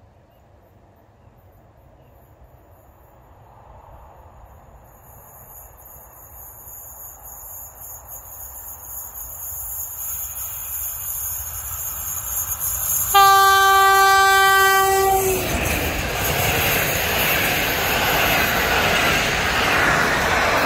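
EP07 electric locomotive and its passenger coaches approaching and passing at speed: a rising rush with a high-pitched hiss, then one horn blast of about two seconds, followed by the loud, steady rush of the coaches going by.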